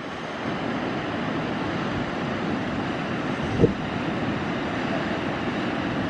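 Steady roar of wind and ocean surf breaking against sea stacks and cliffs, with one brief low thump about halfway through.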